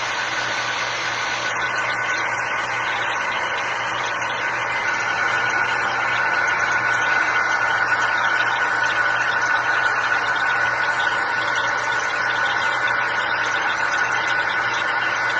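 Hair dryer running steadily, loud, blowing on wet paint to speed its drying: an even rush of air with a steady fan whine.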